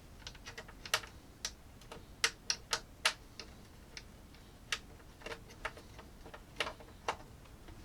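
Irregular sharp clicks and taps of small hard parts being handled while working on a computer server: about twenty clicks over several seconds, unevenly spaced.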